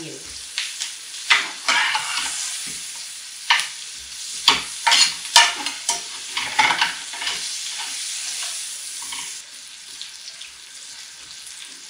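Chopped bell peppers and onion sizzling in butter in a griddle pan, with a slotted spatula scraping and turning them in quick, irregular strokes. The sizzle eases a little near the end.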